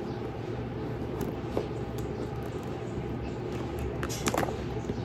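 Handling noises as a bag organizer is pushed into a leather handbag: soft rustling and small clicks, with a brief scraping rasp about four seconds in, over a steady background hum.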